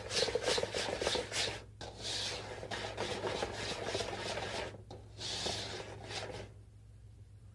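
Wire whisk beating melted gelatin into a whipped egg-yolk mixture in a stainless steel bowl: rapid scraping strokes against the metal, stopping about six and a half seconds in.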